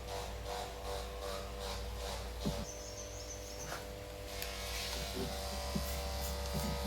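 Steady low electrical hum and buzz, with scattered light clicks and taps.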